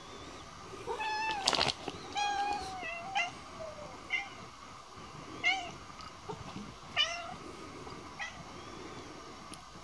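Cat meowing repeatedly: a string of short, high meows about every second, with a longer call about a second in. A sharp knock sounds about a second and a half in.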